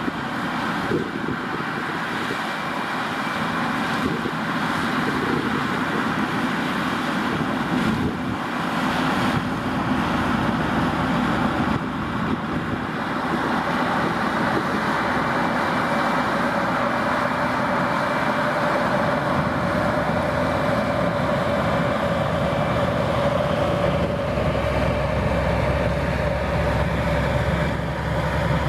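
White Farm Equipment 4-270 four-wheel-drive tractor's diesel engine running steadily under load as it pulls a grain cart, together with a corn combine running and unloading alongside. The tractor's engine grows louder and deeper near the end as it comes closer.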